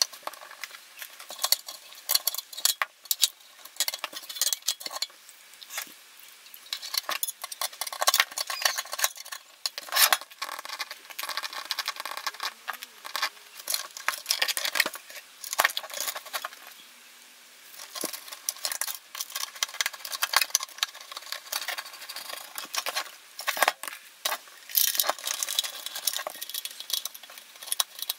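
Screwdrivers turning small screws in a metal radio chassis: irregular clicks, scrapes and metallic clinks of blade, screws and parts being handled, with a short lull past the middle.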